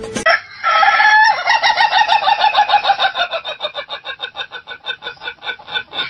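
A rooster crowing: a held call about half a second in, which breaks into a long, fast run of stuttering pulses, several a second, slowly fading.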